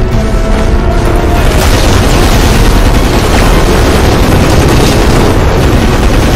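Film explosion effects: a loud, dense rumbling blast with flying debris, thickening about a second and a half in.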